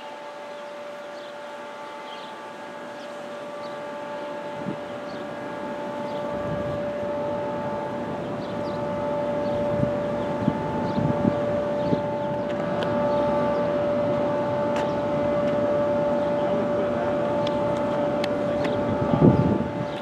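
ASC Quadren Q-3200 electronic warning siren sounding a steady, unwavering alert tone that grows steadily louder over the first half. There is a brief low bump near the end.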